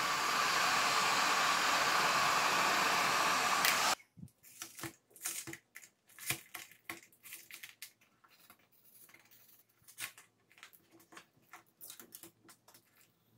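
Electric heat gun blowing steadily on aluminium foil tape, switched off about four seconds in. Afterwards, scattered crackles and rustles as the softened foil tape is peeled off the monitor's metal board shield.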